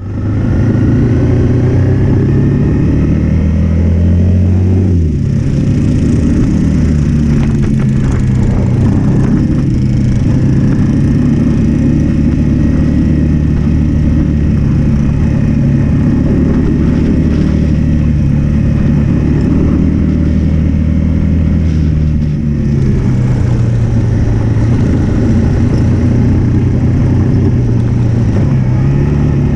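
Single-cylinder trail bike engine running under way, heard from the bike being ridden, at a steady pace. The engine note drops about five seconds in and dips briefly again after twenty-two seconds.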